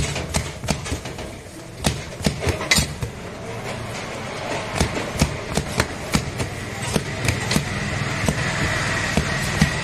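Hands slapping and beating a stack of hot, freshly cooked Kerala parottas on the griddle to crush them and open up the flaky layers: a run of sharp slaps, several a second at an irregular pace, over a steady low hum.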